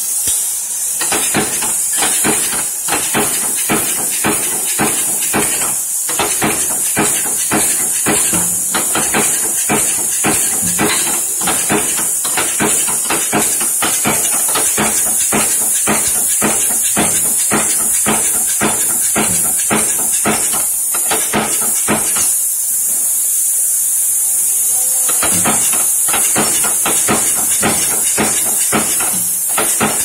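Flywheel-driven mechanical punch press stamping a steel strip, a fast even run of sharp metal strikes that pauses briefly about three-quarters of the way through, over a steady high hiss.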